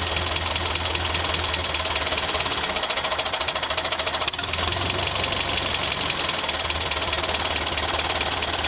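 Toy tractor running with a steady, rapid engine-like chugging as it drives along, briefly interrupted about four seconds in.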